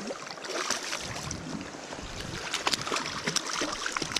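A hooked brown trout thrashing and splashing at the surface of a shallow stream, repeated splashes over the sound of running water.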